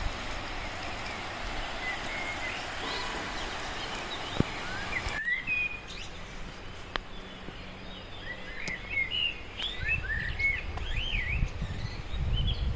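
Small birds chirping and twittering in quick short calls over a steady outdoor background noise, with low wind rumble on the microphone near the end.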